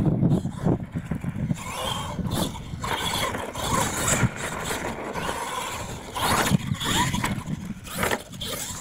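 Radio-controlled monster truck driving and jumping on a dirt course: its motor whines, rising and falling with the throttle, with sharp knocks as it lands and hits obstacles.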